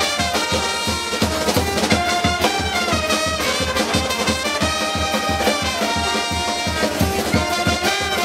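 Street brass band playing: trumpets, saxophones and trombone over a bass drum and snare keeping a steady beat.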